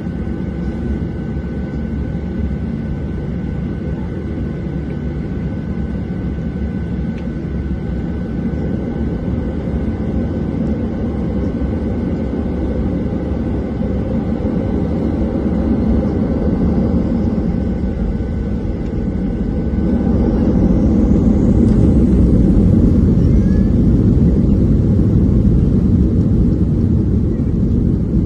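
Boeing 737-800 jet engines running as a steady low rumble. It grows louder about 16 seconds in and again about 20 seconds in, with a faint rising whine around the second rise.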